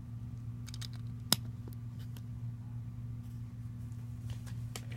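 A steady low hum with a few light, scattered clicks; one sharper click comes about a second and a half in.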